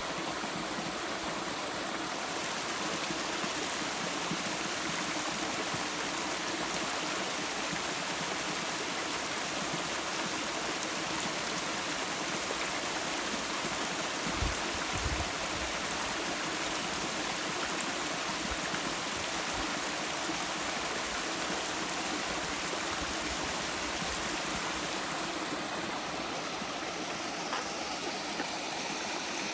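A stream rushing steadily over rocks, with one brief low thump about halfway through.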